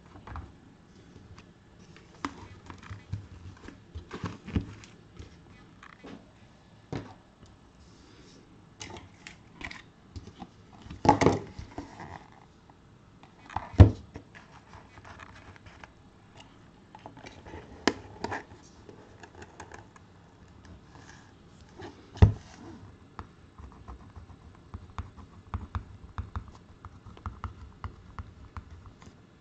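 Cardboard boxes and a plastic puck case being handled on a table: scattered taps, knocks and rustling, with a few louder knocks.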